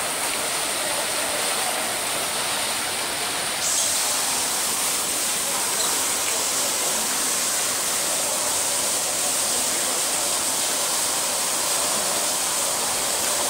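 Steady rushing hiss of running water, a little brighter from about four seconds in.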